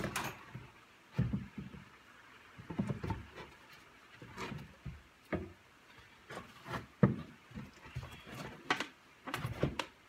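Wooden sides of an OSB hive box knocking and scraping together as the glued finger joints are fitted back together by hand: irregular knocks with gaps between them, the sharpest about seven seconds in.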